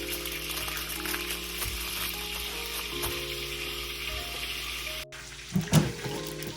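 Food sizzling steadily in a hot frying pan, over background music. About five seconds in, the sizzle cuts off abruptly and is followed by splashing water and a loud knock.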